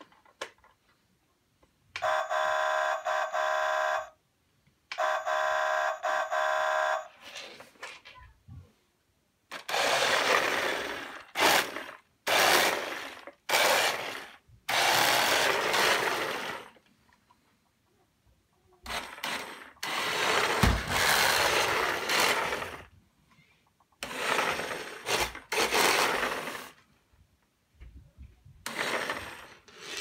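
Electronic horn of a remote-control Coca-Cola Christmas truck model, two blasts about two seconds each, a chord of steady tones. Then the toy's electric drive motor and gears run in bursts of a few seconds as it drives.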